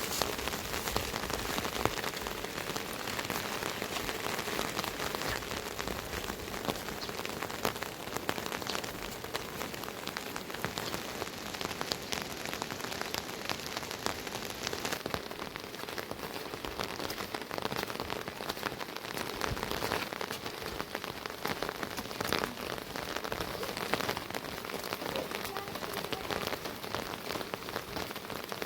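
Steady rain falling, with many separate drops tapping sharply through it.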